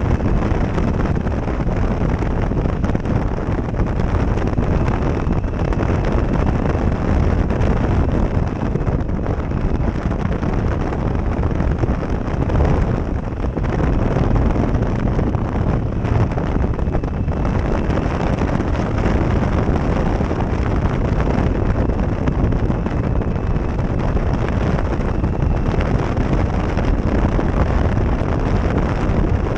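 Steady wind noise buffeting a helmet-mounted action camera's microphone at riding speed on a motorcycle, deep and rushing, all but burying the bike's engine.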